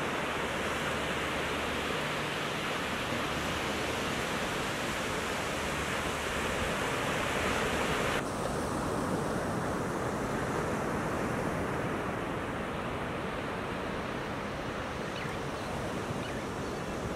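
Ocean surf breaking and washing up a sandy beach: a continuous rush of white water. About eight seconds in, it turns abruptly duller.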